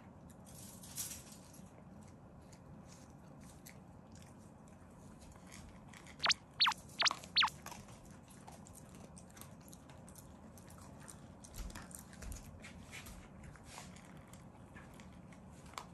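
Shiba Inu eating meat and rice from its bowl: steady chewing and biting with many small clicks. A little after six seconds in come four short, high squeaks that fall in pitch.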